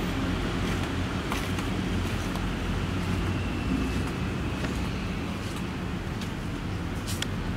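Steady low rumble and hum of background noise, with a few faint clicks.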